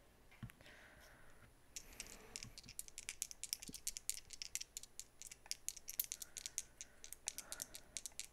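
A pair of dice shaken in a cupped hand: a fast, irregular clatter of small clicks starting about two seconds in.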